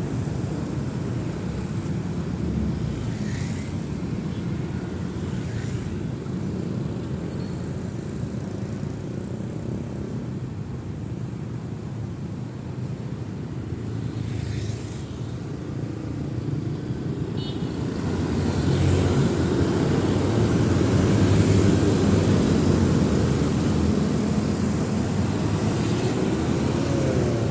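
Street traffic, with cars and motorcycles passing in a continuous rumble. It grows louder about two-thirds of the way through as a denser stream of vehicles goes by.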